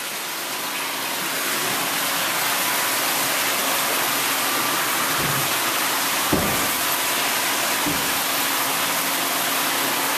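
Steady rush of running water, growing louder over the first couple of seconds, with a few low knocks near the middle, the second one the sharpest.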